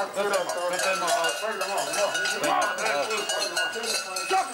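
Many large cowbells worn by costumed parklji (Krampus figures) clanging and jangling together as the group walks, a dense, continuous metallic din.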